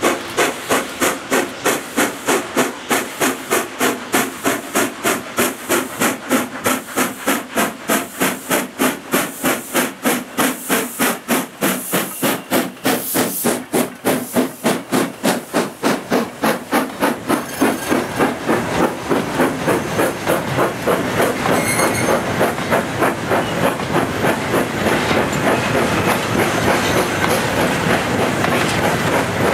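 Austerity 0-6-0 saddle-tank steam locomotive No. 71515 working hard under a heavy freight load, its exhaust beating about three times a second with hissing steam as it draws up and passes close by. From about two-thirds of the way in, the beats give way to the steady rolling clatter of the freight wagons' wheels on the rails, with a brief high squeal partway through.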